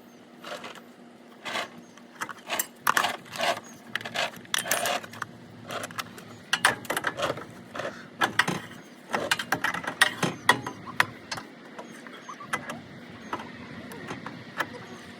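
Hand tools and metal parts clinking and knocking during car suspension work, a quick irregular series of sharp metallic clanks and rattles that thins out near the end.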